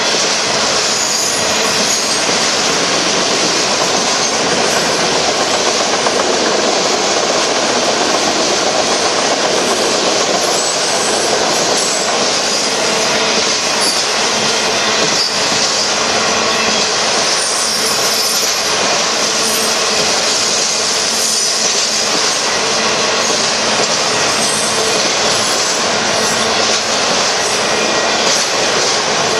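Freight cars of a Union Pacific merchandise train, mostly autoracks, rolling past close by: a loud, steady noise of steel wheels running on the rails.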